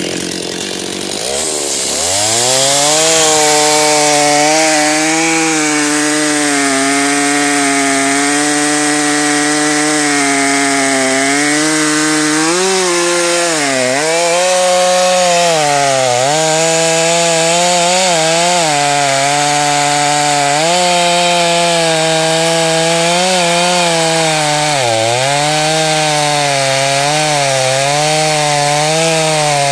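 Stihl 029 Super two-stroke chainsaw revving up over the first couple of seconds, then running at full throttle under load as its 20-inch bar cuts full depth through a large log. The chain's cutters are filed to uneven lengths on the two sides. The engine note sags and recovers several times as the chain bites harder, around halfway through and again near the end.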